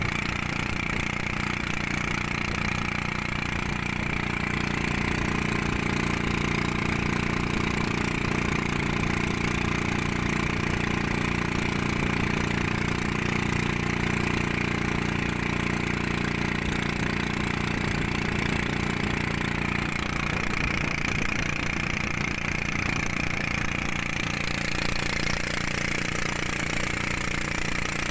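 Engine of a small motorized bangka (Filipino outrigger boat) running steadily while the boat is under way.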